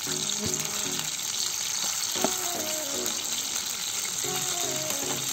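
Food frying in hot oil: a steady sizzling hiss, with a light click about two seconds in. Background music plays over it.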